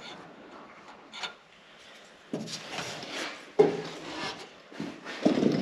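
Handling noises: rubbing and scraping, with a sharp knock about three and a half seconds in and more rubbing near the end.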